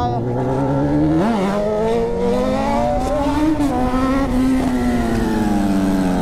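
Honda CB1000R inline-four engine with an open exhaust, pulling under throttle: a brief jump in pitch about a second in, then the revs climb for a couple of seconds and slowly fall away.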